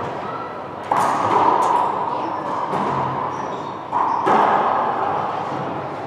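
Racquetball being hit: two sharp smacks, about a second in and again about four seconds in, each followed by a long echo off the court walls.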